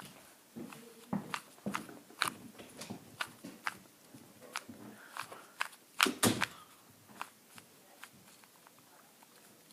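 Plastic 2x2 Rubik's cube being turned by hand: quick irregular clicks and clacks of the layers snapping round, a few a second, with a louder double clack about six seconds in.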